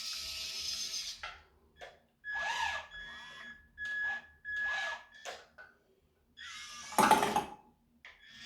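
Small electric motors of a 1/32-scale radio-controlled Liebherr excavator whirring in three short bursts with a steady whine, followed about seven seconds in by a short, loud clatter.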